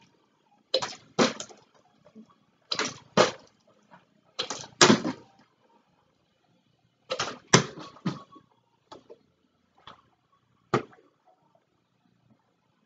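A partly filled plastic water bottle being flipped and landing again and again: a run of short knocks and thuds, many in quick pairs as it hits and bounces, with a few fainter single knocks near the end.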